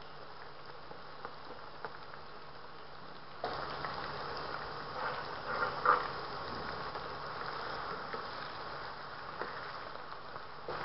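Potato chunks deep-frying in hot oil, a steady sizzle with faint crackles. It grows louder about three and a half seconds in, with a brief louder burst near six seconds.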